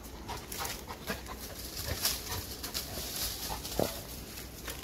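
Dry fallen leaves crackling and crunching under the steps of a running Labrador retriever and the person following it, with a brief sharper sound about four seconds in.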